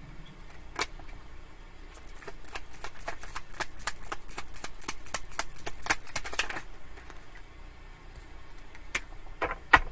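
Tarot cards being shuffled by hand: a quick run of light clicks and flicks from about two to six and a half seconds in, with a few single clicks before and after.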